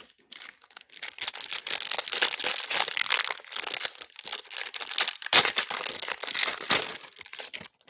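Clear cellophane wrapper on a pack of trading cards crinkling and tearing as it is pulled off by hand, a dense crackle with its loudest rips about five and a half and seven seconds in.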